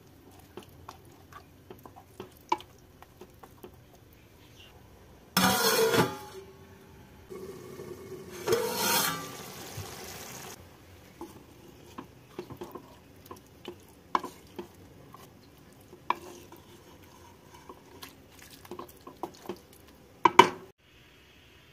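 A wooden spatula stirs greens and eggs in a dark non-stick pan, with light knocks and scrapes against the pan. There are two loud bursts of hissing, one about five seconds in and another from about eight to ten seconds in, as the pan gives off a cloud of steam. Near the end comes a sharp knock.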